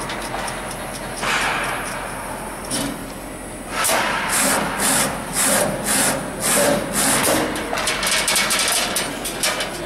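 CNC channel letter bending machine working a stainless steel strip. About four seconds in it starts a run of loud rasping strokes, about two a second, turning to faster clicking near the end.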